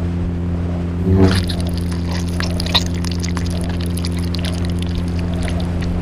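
Sci-fi sound effect: a steady low electric hum, with crackling and fizzing that starts about a second in and carries on over it.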